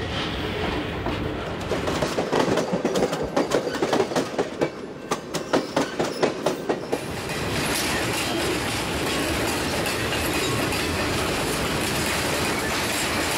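Freight train cars rolling past on the rail: a quick rhythmic clickety-clack of wheels striking rail joints, giving way about halfway through to a steady rolling noise of steel wheels on the track.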